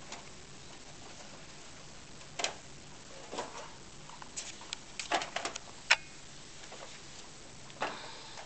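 A few scattered light clicks and knocks over a low steady room hum, with a quick run of clicks about five seconds in.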